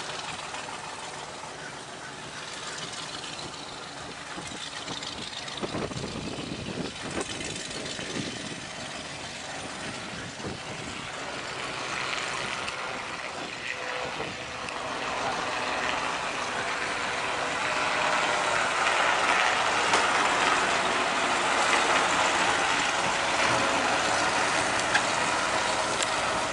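Robinson R22 Beta light helicopter in flight, its four-cylinder piston engine and two-blade rotor running steadily. It grows louder over the second half as it comes closer.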